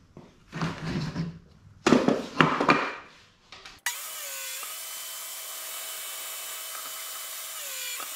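Wooden boards knocking and sliding on a table saw's steel top. Then, about four seconds in, the table saw starts running with a steady whine whose pitch dips twice as the boards are fed through to cut grooves.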